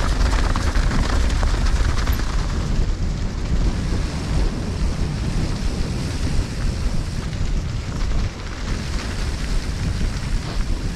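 Wind buffeting a helmet-mounted camera microphone, over the steady rumble of a mountain bike's tyres on a rough dirt trail at speed, with the frame and drivetrain rattling in many small clicks.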